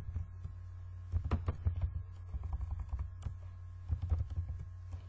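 Computer keyboard being typed on in short bursts of keystrokes, starting about a second in, over a steady low hum.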